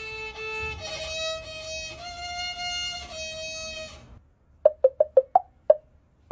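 Solo violin bowed slowly in a few long held notes, stopping suddenly about four seconds in. Then a quick run of about six short pitched pops.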